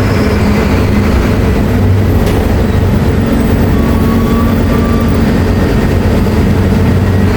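Mercedes-Benz OF-1724L BT5 city bus running under way: a loud, steady engine drone over road rumble, with a single click a little after two seconds.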